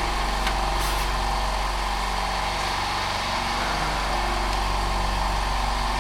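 Steady motor-driven machine running: a constant noise over a low hum, with no change in speed or level.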